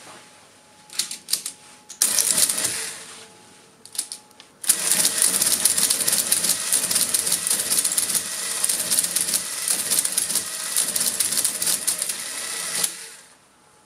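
Marchant 8CMR electromechanical calculator with its covers off, working through a division. A few clicks and a short burst of clatter come first, then about eight seconds of dense, rapid mechanical clatter that stops abruptly near the end.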